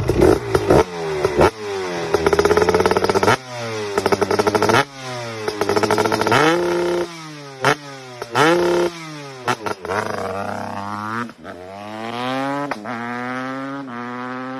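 Supermoto motorcycle engine revved hard several times at a standstill, some revs held at the top in a fast stutter. It then pulls away, the pitch climbing and dropping back at each gear change as the bike moves off.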